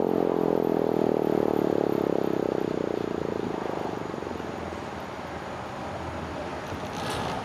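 Federal Signal mechanical siren's chopper, spun up by a drill, winding down: its multi-tone wail fades away over the first three to four seconds, leaving a low rumble, with a brief burst of noise near the end.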